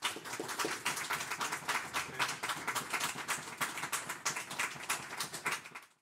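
Audience applauding, many quick overlapping claps; the applause fades out near the end.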